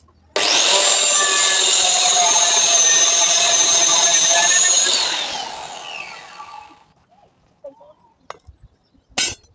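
Handheld angle grinder switched on and cutting through a steel rod with a loud, steady high whine for about four and a half seconds, then switched off and spinning down, its pitch falling as it fades. A single sharp clack near the end.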